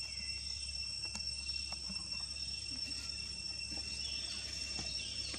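Steady, high-pitched insect drone of crickets or cicadas, an unbroken thin tone, with a few faint clicks.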